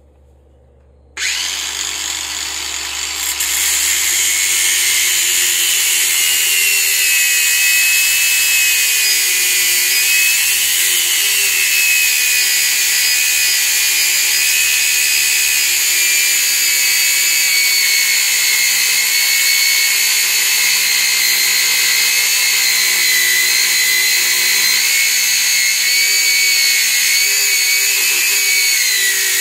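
Angle grinder starting up about a second in, then cutting into the steel coil spring of a suspension strut that is still under load: a loud, continuous high whine with grinding, its pitch wavering slightly as the disc bites.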